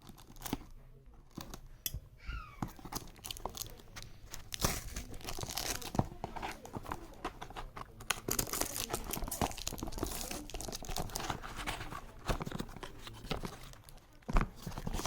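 Packaging being torn open and crinkled by hand: a busy run of rustles, rips and small clicks.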